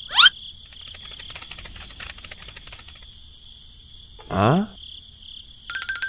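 Added cartoon sound effects over a steady insect-chirp ambience: a quick rising whistle at the start, faint rapid ticking for a couple of seconds, and a louder rising whistle-like glide about four seconds in. Music with a quick beat starts just before the end.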